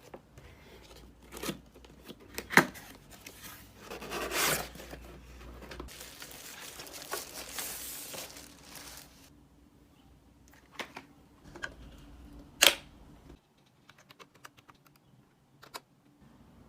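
Packaging being torn open and crinkled by hand, with a few sharp clicks and knocks; two knocks, about two and a half seconds in and near twelve and a half seconds, are the loudest.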